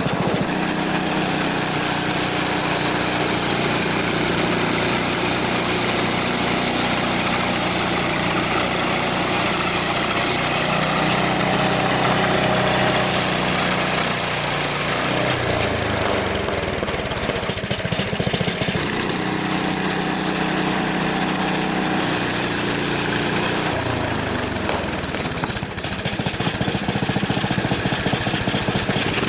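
Small gasoline engine of a Frontier OS23 portable bandsaw mill, fitted with a new muffler, running steadily at speed while the mill makes a cut in a maple log. The engine note dips and shifts about halfway through, then settles again.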